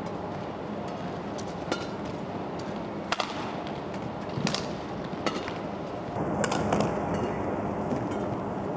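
Badminton rally: a racket striking the shuttlecock in sharp hits, about six of them roughly a second apart, over steady background noise in the hall.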